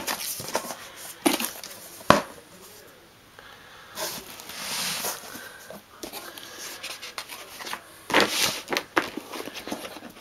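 Paper instruction sheets and a glossy brochure rustling and sliding as they are handled, in short irregular bursts, with a sharp click about two seconds in.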